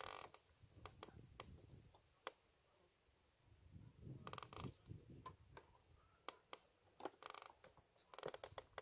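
Quiet handling noises from an angler working his rod and reel: scattered sharp clicks and a few short rustles.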